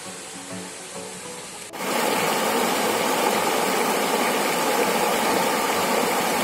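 Water of a small waterfall rushing over a rock ledge, heard close: a loud, steady rush that starts suddenly about two seconds in, after a quieter opening with faint musical tones.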